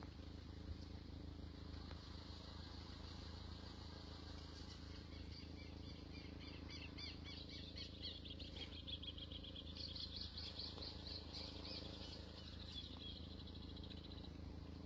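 Bird chirping in fast repeated trills, beginning about a third of the way in, strongest later on and fading near the end, over a faint steady low hum.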